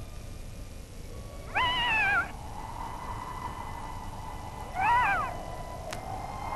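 Harp seal whitecoat pup, newly left by its mother, crying twice. Each call lasts over half a second and rises, then falls, in pitch.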